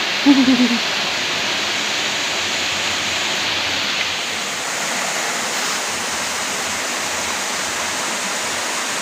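Steady rush of flowing river water, with a short bit of voice just after the start.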